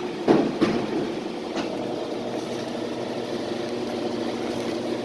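Washing machine running with a steady hum, after a few sharp knocks in the first second.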